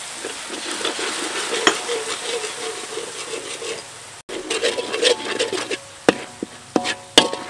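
Metal spatula stirring and scraping a sizzling seasoning mixture in a metal wok, over a steady frying hiss. A few sharp clinks of the spatula against the pan come near the end.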